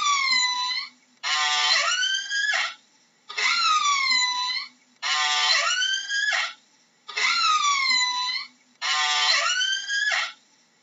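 Orca (killer whale) calls, about six in a row, each a little over a second long with short gaps between. They alternate between a call that dips and then rises in pitch and one that starts as a buzzy run of pulses and sweeps upward.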